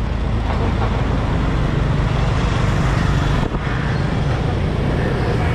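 Motorbike traffic on a city street: a steady rumble of scooter engines and road noise.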